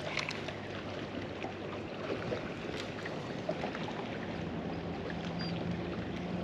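Steady background noise of water and wind around a small fishing boat, with a faint low hum and a few light ticks.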